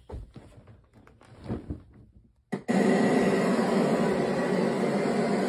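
Faint handling bumps, then a click about two and a half seconds in and a sudden loud, steady rushing noise with a faint hum in it that holds from then on.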